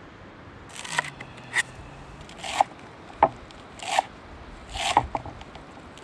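Large kitchen knife cutting through fresh greens onto a wooden chopping board, about six slow strokes, each a short slicing scrape ending in a crisp tap.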